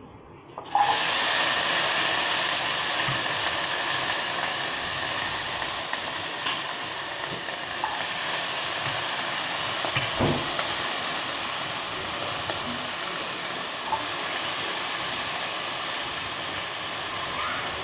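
Chopped vegetables sizzling loudly in hot oil with cumin seeds in a stainless steel wok. The sizzle starts suddenly under a second in and slowly eases off, with a few light knocks of stirring.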